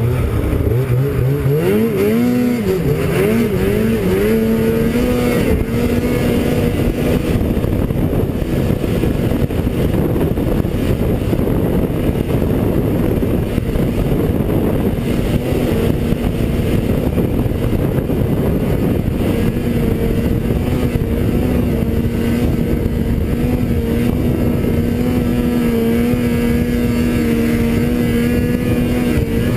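Arctic Cat snowmobile engine heard from the rider's helmet, its revs rising and falling a few times, then held steady at a high, even pitch.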